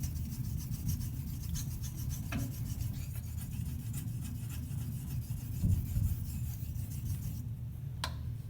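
Straight razor blade stroked back and forth on a 5,000-grit whetstone: a steady, soft rubbing of steel on stone, the edge now running smooth after a burr has just worn off. A single click near the end.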